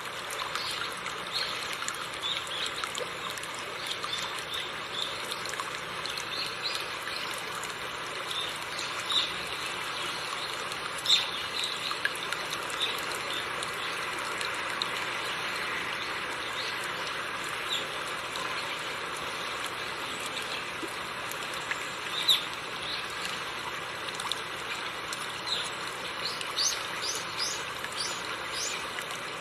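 River water running over rocks with a steady rushing, trickling sound. Small birds chirp in short calls throughout, with a quick run of rising chirps near the end.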